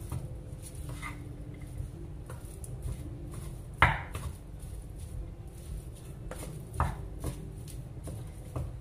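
Wooden spatula stirring and pressing a thick potato-and-corn mixture in a pan, with irregular scraping taps against the pan. The sharpest knock comes about four seconds in, and another comes near seven seconds.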